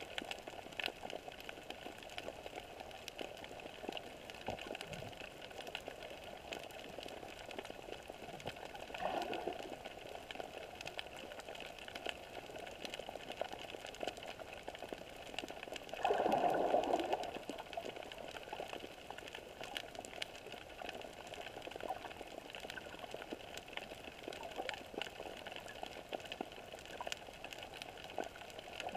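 Underwater ambient sound picked up by a GoPro in its waterproof housing: a steady hiss full of faint crackling clicks, with a brief water swell about nine seconds in and a louder swell about halfway through.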